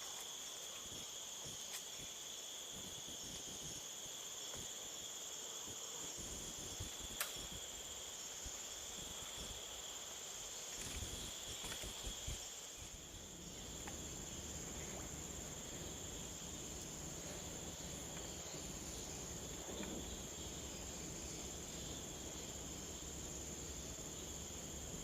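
Steady high-pitched insect chorus, an unbroken trill, with a single sharp click about seven seconds in.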